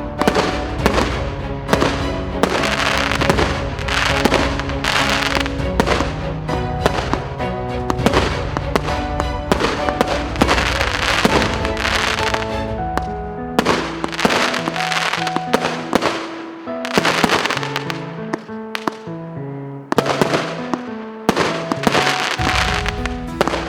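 A multi-shot firework cake firing 1.2- and 2-inch shots in rapid succession, a dense run of bangs and bursts that thins to sparser shots about halfway through, over background music.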